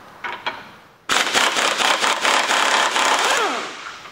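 Impact wrench hammering rapidly on the 24 mm strut-top nut for about two and a half seconds, then spinning down with a falling pitch as the nut runs off. A couple of short clicks come first as the socket is seated on the nut.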